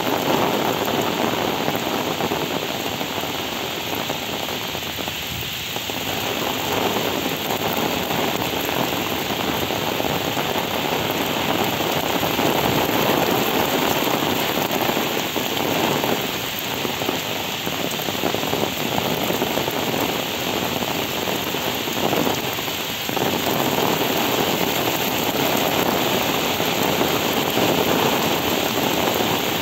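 Heavy rain pouring steadily onto wet pavement and standing water, a dense even hiss that swells and eases a little.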